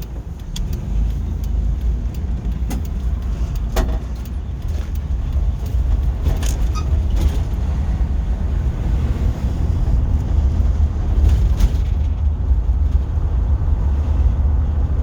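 Car road and engine noise heard from inside the cabin while driving: a steady low rumble that grows a little louder over the first several seconds, with a few faint clicks.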